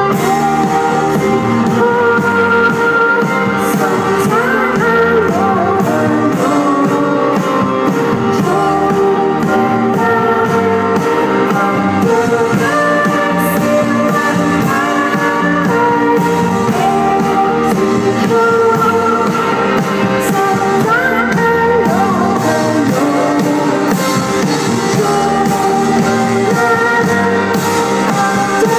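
Live indie pop band playing: a woman sings into a microphone over electric guitar, keyboards and drums.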